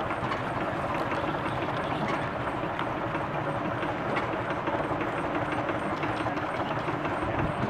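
Antique Huber sawmill running steadily: the belt-driven circular saw, flat drive belts and sawdust blower make a continuous mechanical clatter and hum.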